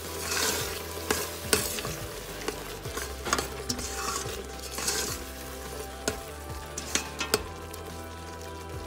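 A metal spoon stirring fusilli in thick tomato sauce in a stainless steel pot: wet swishing through the sauce with several sharp clinks of the spoon against the pot's side.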